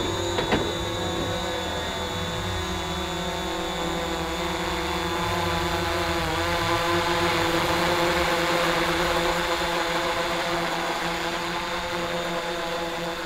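Small quadcopter drone's propellers whining steadily as it hovers and climbs, several held tones that swell in the middle and ease off slightly near the end. A single short click about half a second in.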